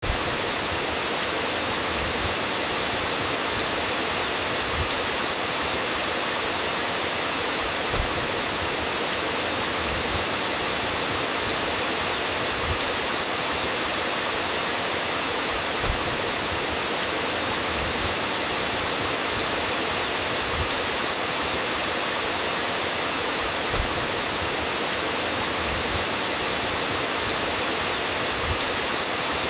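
Steady rain, an even hiss without let-up, with soft low knocks every few seconds from drops striking a surface.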